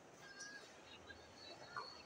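Faint squeaks of badminton players' shoes on the indoor court floor during a rally, with one short, slightly louder squeak near the end.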